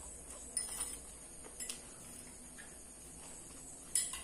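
A person eating rice and side dishes with their fingers: a few short, sharp chewing and mouth clicks, the loudest near the end, over a steady high hiss.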